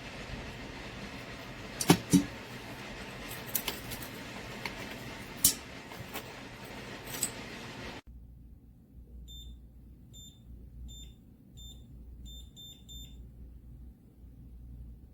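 A few sharp knocks and clicks, then after a sudden cut a run of about seven short, high electronic beeps from the biometric pistol safe's keypad, the last few coming faster, as of buttons being pressed.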